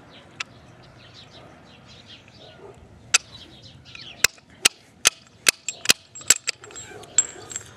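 Sharp metal clicks from a hand tool worked against a disassembled Briggs & Stratton mower engine: about nine separate clicks, irregularly spaced, starting about three seconds in.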